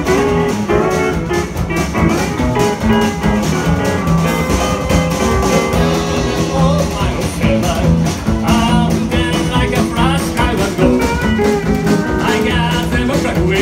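Live country band playing an instrumental passage: electric guitar and console steel guitar over a drum kit and upright bass, with a steady beat and gliding, wavering notes in the second half.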